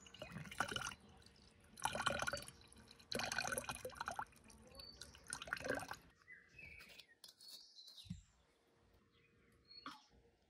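Water splashing in four short bursts.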